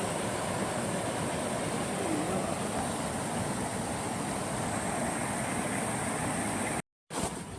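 Waterfall and river water rushing steadily, broken by a moment of silence near the end.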